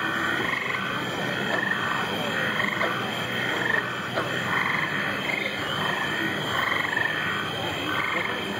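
Frogs croaking in a steady rhythm, about two short calls a second, over the steady rush of the lagoon's waterfalls.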